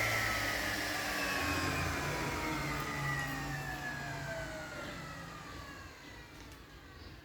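Motor and blade of a homemade single-head aluminium cutting saw spinning down after being switched off: a whine falling steadily in pitch and fading away.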